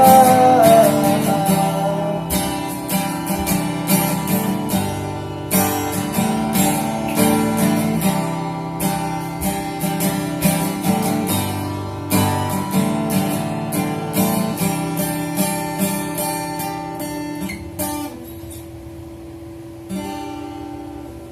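Acoustic guitar strumming a song's instrumental ending, slowly fading out. A held note slides down right at the start, and a last strum comes near the end.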